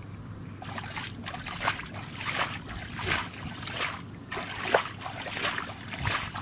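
Hands sloshing and splashing through shallow muddy water, a quick run of short wet splashes with one sharper splash about three quarters of the way in.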